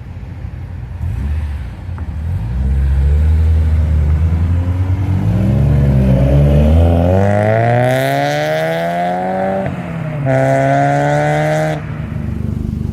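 A car's engine and exhaust accelerating hard. The pitch climbs steadily for several seconds, drops sharply at a gear change about ten seconds in, holds high again, then falls as the throttle is lifted near the end.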